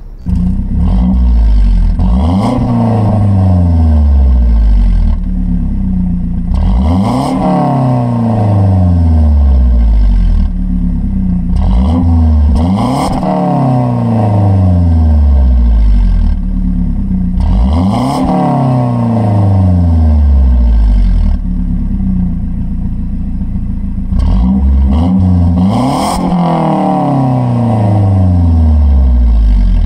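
Mazda 3 MPS (Mazdaspeed3) 2.3-litre turbocharged four-cylinder, heard at the exhaust tip of its stock exhaust with the resonator deleted, idling and being free-revved five times. Each rev rises quickly, then falls slowly back to idle.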